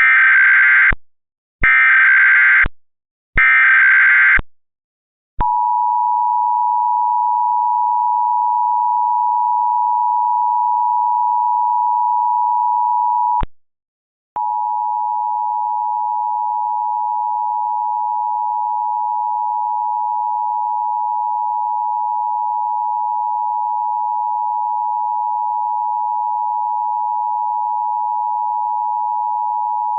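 Emergency Alert System tones: three one-second bursts of SAME digital header data, then the steady two-tone EAS attention signal. The two-tone breaks off for about a second near the middle and comes back slightly louder.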